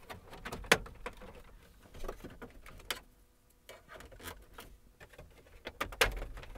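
Plastic dash trim being pried loose with a trim tool: several sharp clicks and snaps of the plastic and its retaining clips, spread out with pauses between them.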